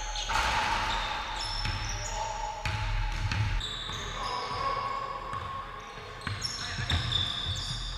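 Pickup basketball game on a hardwood gym floor: sneakers squeak in many short high chirps as players cut and run, with the thud of the ball bouncing a few times.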